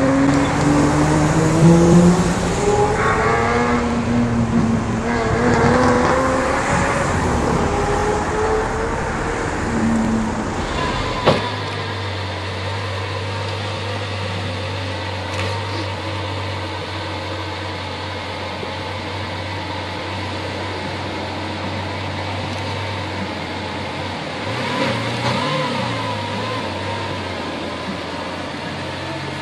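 A sports car's engine revving and accelerating away, its pitch rising and falling through gear changes. After a click about eleven seconds in, a Lamborghini Aventador's V12 idles steadily.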